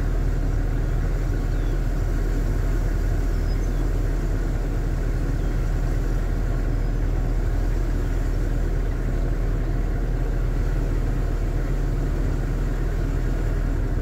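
Toyota light truck's engine running steadily in second gear at low road speed, heard from inside the cab together with road noise.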